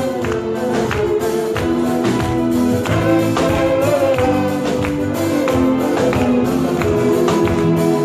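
Live band playing a Turkish pop song's instrumental opening, loud and steady, with held keyboard-like notes over a regular drum and percussion beat, picked up by a phone's microphone in the hall.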